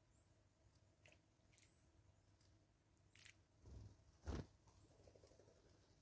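Faint splashing and wing flutters as a Cape starling hops into a shallow tyre bird bath and bathes, loudest about three to four seconds in. A few faint, short high bird chirps sound in the background.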